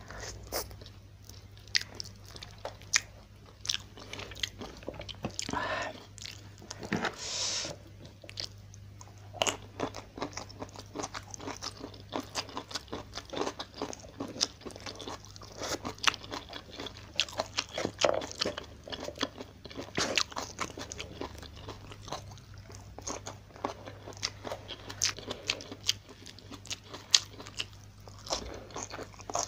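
Close-miked eating by hand: crunching and chewing of fried tilapia, rice and crisp stir-fried bok choy stems, with wet mouth clicks and smacks in an irregular run. A short breathy hiss comes about seven seconds in, over a faint steady low hum.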